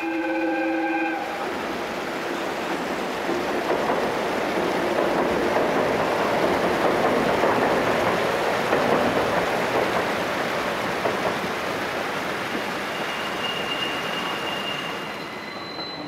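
JR East 211 series electric train running across a steel girder bridge: a steady rumble of wheels on rail that swells toward the middle and slowly fades. A short horn note, about a second long, opens the passage.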